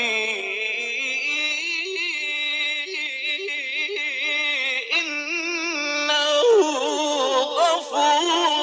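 Male Quran reciter chanting in the melodic mujawwad style: one voice draws out long ornamented notes with a quick wavering vibrato. It breaks off briefly about five seconds in, then begins a new phrase with sliding, falling turns.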